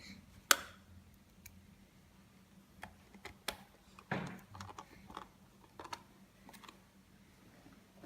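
Scattered small clicks and taps of screws and a screwdriver being worked into the plastic housing of a car display unit, the sharpest click about half a second in and a cluster of lighter ones in the middle.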